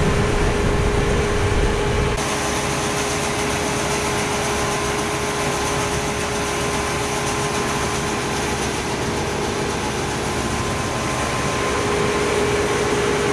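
Heavy harvest machinery running steadily, a constant machine noise with a steady whine through it; the sound changes abruptly about two seconds in, the low rumble dropping away.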